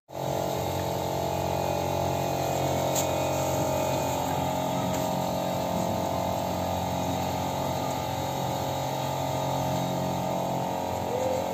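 Steady hum of the swinging ship ride's electric drive motor, a dense set of steady tones at an even level. The drive is running to give the first push that starts the swing.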